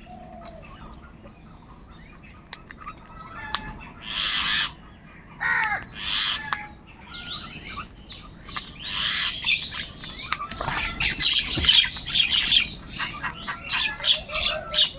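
Crows cawing: a few single harsh caws, then several birds calling over one another in a dense run of caws from about two-thirds of the way in.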